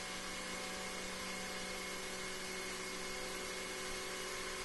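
Taig CNC mill's spindle running steadily at about 10,600 rpm as a 1/8 inch end mill makes a light cut in 6061 aluminum, over the steady running of an oilless air compressor refilling its tank.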